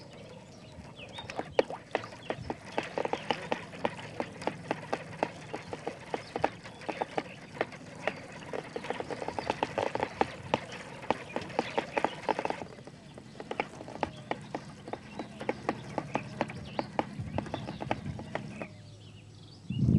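Spinning fishing reel being cranked to wind nylon line onto its spool: a fast, even run of clicks from the turning reel. The clicks break off briefly about two-thirds of the way through, then resume and stop shortly before the end.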